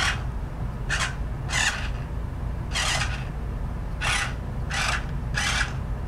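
Radio-controlled toy carriage's small electric drive motor and gears whirring in short raspy spurts, about seven in six seconds at uneven spacing, as it is driven in starts and stops.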